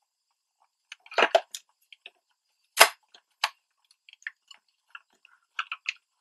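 Scattered clicks and light knocks of a 1/24 scale Jada diecast Rally Fighter model being handled and turned over in the hand, its plastic and metal parts tapping together, with the sharpest click a little under three seconds in.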